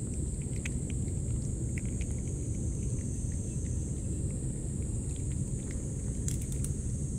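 A cat licking and chewing wet cat food from a shallow metal dish close to the microphone: small wet clicks and smacks, a cluster of them about six seconds in. A steady high buzz and a steady low rumble run underneath.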